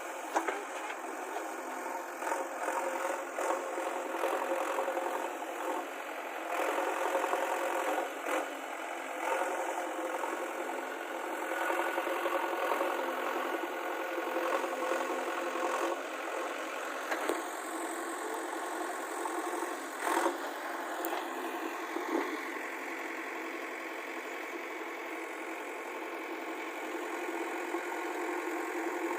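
JCB backhoe loader's diesel engine running steadily, its level rising and falling a little. A few sharp knocks sound over it, the loudest about 20 seconds in.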